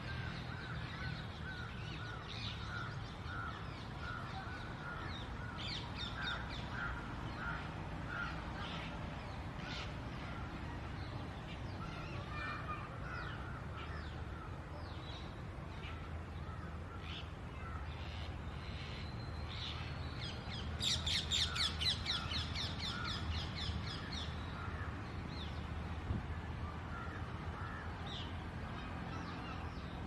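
Ring-necked parakeet chicks begging with harsh, repeated calls while the adult feeds them beak to beak. About two-thirds of the way through comes a fast rattling run of calls, the loudest part, over a steady low hum.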